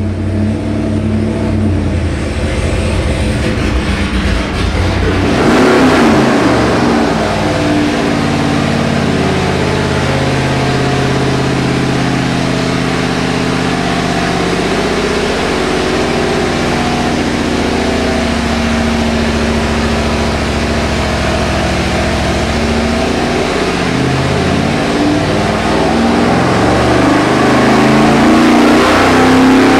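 Fuel-injected GM 502 big-block Chevy V8 running under load on an engine dyno. The throttle opens about five seconds in, and the engine holds a steady speed of around 1,900 rpm. In the last several seconds it revs up steadily, rising in pitch and getting louder as a full-throttle dyno power sweep begins.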